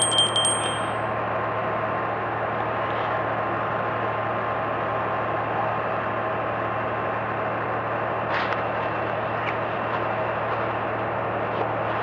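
Construction-site machinery engine running steadily with a low hum and a faint whine. A metallic clink rings out briefly at the start, and there is a short scrape about eight seconds in.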